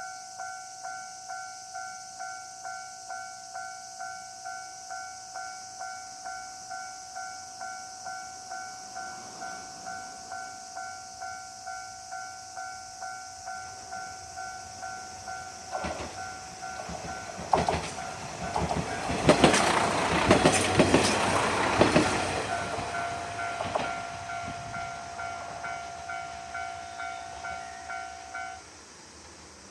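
Japanese level-crossing warning bell ringing steadily, about two dings a second, as the Jidai no Yoake no Monogatari diesel railcar tourist train runs over the crossing. Its wheels clatter over the rail joints from about halfway in, loudest in the third quarter and then fading. The bell stops just before the end.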